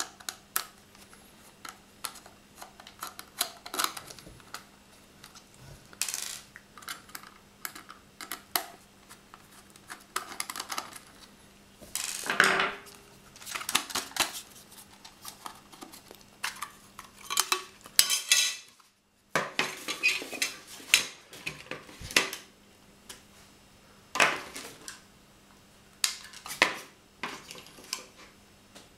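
Hands handling a Philips SBC288 home alarm's metal-backed plastic case and its polystyrene packing: irregular clicks, knocks and short scrapes of hard parts being picked up, set down and opened. A faint steady hum runs underneath.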